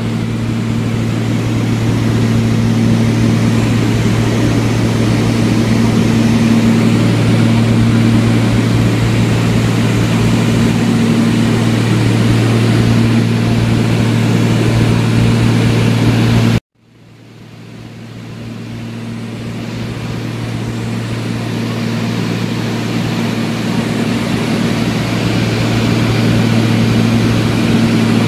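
Steady drone of a small propeller airplane's engine, heard from inside the cabin: a low hum with a steady tone above it. About two-thirds of the way through, the sound cuts out suddenly and then fades back up over a few seconds.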